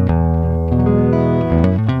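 Electric guitar with a Lollar pickup, played unaccompanied: a chord is struck and left ringing for about a second and a half, then quick picked single notes start again near the end.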